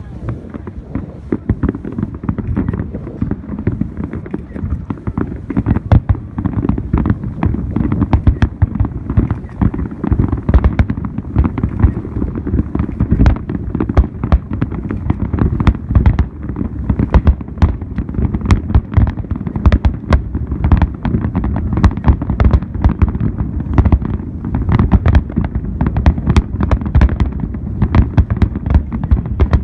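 Fireworks display: a dense, continuous barrage of bangs and crackling shell bursts over a rolling low rumble, growing thicker and louder from about six seconds in.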